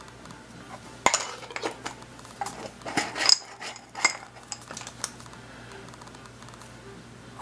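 Small steel lathe parts clinking and rattling against a glass jar: a run of sharp clinks for about four seconds, starting about a second in, then only a low steady hum.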